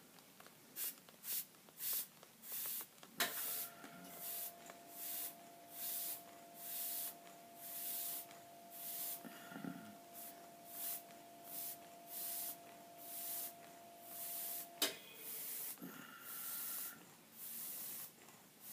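Airbrush spraying paint in short, repeated hissing bursts, about one to two a second, as the trigger is pulsed. A steady hum starts with a click about three seconds in and stops with a click near fifteen seconds.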